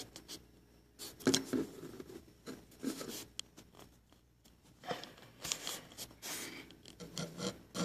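Faint, scattered rustling and clicking: handling noise from a phone being moved about while it films.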